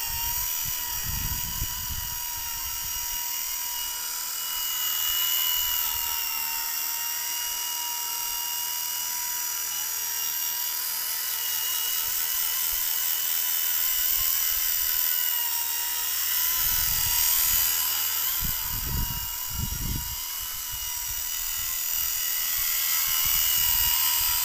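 Micro electric RC helicopter built on XK K200 mechanics flying: a steady high-pitched whine from its motors and rotors, wavering slightly in pitch as the throttle changes. A few low buffeting gusts come and go.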